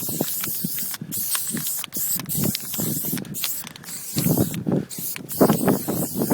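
Aerosol spray-paint can hissing in long strokes, cut by several brief pauses as the nozzle is released, over irregular low scuffing and rumbling.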